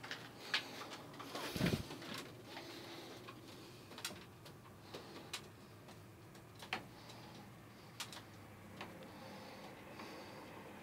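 Sparse light clicks and taps, roughly a second or more apart, with one louder thump and rustle about a second and a half in.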